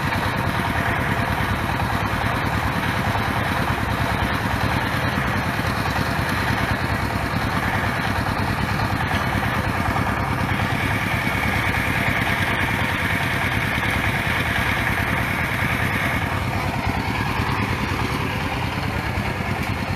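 Engine of a water-well drilling rig running steadily, with a higher hiss rising over it for several seconds in the middle.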